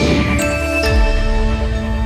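Channel intro jingle: synthesized music that opens with a whooshing sweep, then settles into held chords with a deep bass note coming in about a second in.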